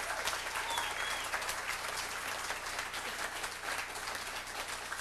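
A room full of people applauding, with dense steady clapping that eases off slightly toward the end.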